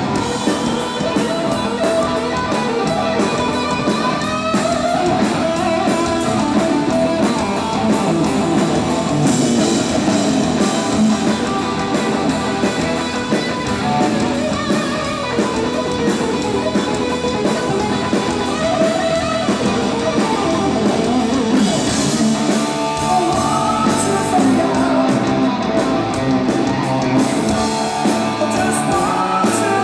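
A live hard rock band plays at full volume, with an electric guitar playing lead lines full of bent notes over bass and drums.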